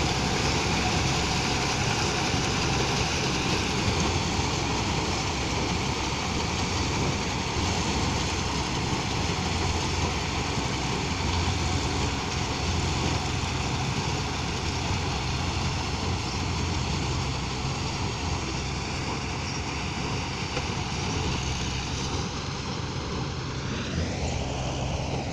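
Combine harvester running steadily while harvesting corn, a continuous heavy engine-and-machinery noise. Near the end a sweep rises and falls in pitch, as something passes close.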